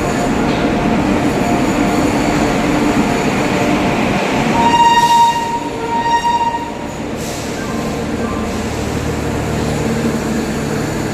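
Passenger train running into a station platform with a steady rumble of wheels and coaches. About halfway through, a locomotive horn sounds two short blasts on one high steady note.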